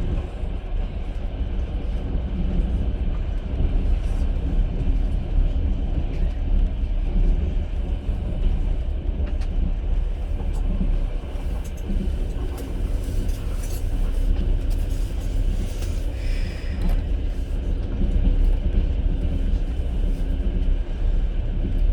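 Inside a passenger train carriage: the steady low rumble of the wheels running on the rails, with occasional faint clicks and a brief higher-pitched sound about sixteen seconds in.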